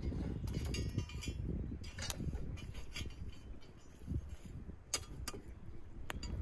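Iron clinking and scraping as a metal ring is lifted on a hooked iron rod and set down over a wood fire, with a few single sharp clinks near the end. A low rumble runs underneath.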